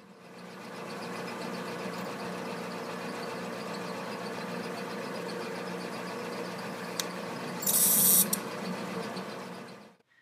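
Bench drill press motor coming up to speed and running steadily with a hum. About eight seconds in, a loud, harsh high-pitched cutting noise lasts about half a second as the small bit drills through the steel backspacer into the titanium liner.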